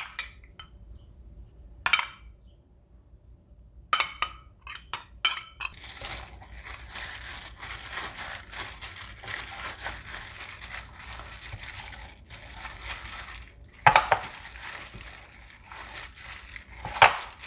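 A metal spoon clicking and scraping against a ceramic bowl as marinade is spooned over raw pork ribs in a glass dish. From about six seconds in, a steady crinkling of a plastic food-prep glove as the hand rubs the marinade into the ribs, with a couple of sharper knocks near the end.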